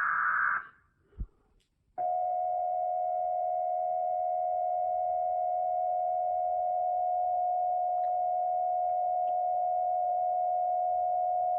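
Emergency Alert System tones, pitched down: a buzzy data burst of the alert header ends in the first second, then about two seconds in the long steady attention tone starts and holds unbroken.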